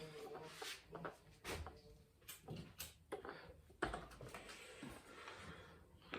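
Irregular light knocks and clicks, a handful spread over a few seconds, the sharpest about four seconds in.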